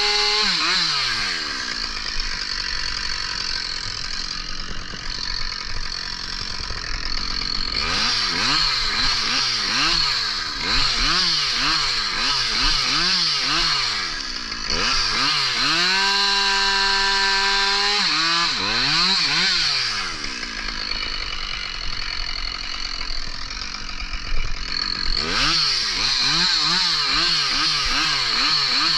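Two-stroke chainsaw cutting logs: it drops to idle about a second in, then repeatedly revs up and down with the pitch swinging quickly as it works through the wood, holds steady at full throttle for a couple of seconds in the middle, idles again, and revs hard once more near the end.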